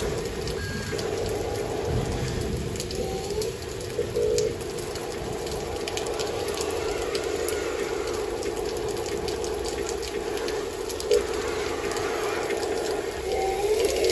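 Remote-control toy wheel loader running: a steady electric motor and gear whine that shifts in pitch as it drives and pushes damp soil with its bucket, with scattered crackles of soil and grit.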